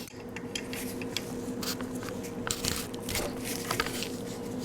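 Scattered light clicks and rustles of hands working small metal parts and tools, over a faint steady hum.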